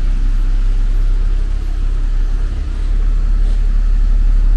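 Street traffic: a steady low rumble of vehicle engines with a hiss of tyres on the road.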